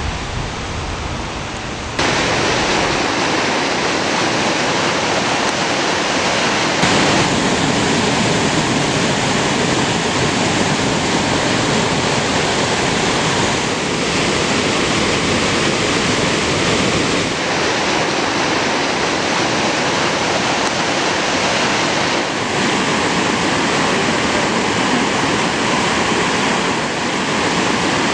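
A flooded creek, swollen far above its normal level, rushing in whitewater and pouring over a low weir. It makes a loud, steady roar of water, and its tone changes abruptly a few times.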